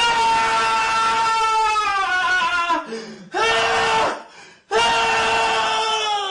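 Meme sound effect of a high-pitched voice wailing in three long held calls with short breaks between them, the last one sliding down in pitch near the end.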